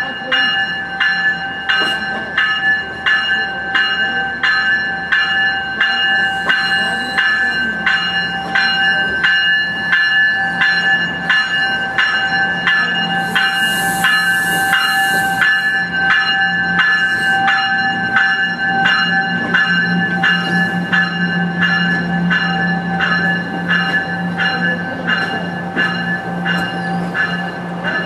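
A bell ringing steadily, about two strikes a second, as an NJ Transit Multilevel push-pull commuter train rolls in past, cab car first. The train's low hum grows in the second half as the cars go by.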